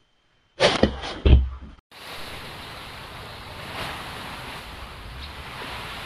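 A few short, loud bursts in the first two seconds. Then an abrupt change to steady water noise from underwater footage of the seabed.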